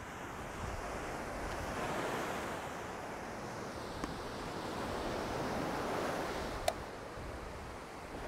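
Ocean surf breaking and washing up a sandy beach, swelling twice, with a single sharp click a little before the end.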